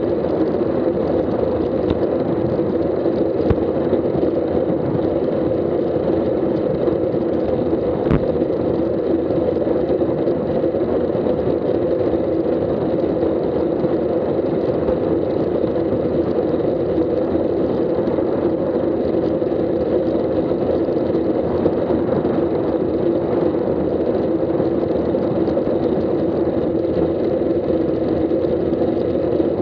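Wind buffeting the microphone of a bike-mounted Garmin Virb Elite action camera on a road bike moving at about 17 mph: a steady rushing noise, with a couple of sharp knocks from the bike going over the road, about three and eight seconds in.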